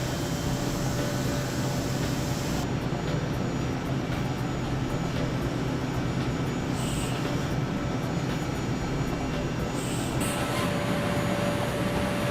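5-axis CNC milling machine cutting aluminium: steady machining noise with a low hum. A steady whine joins about ten seconds in.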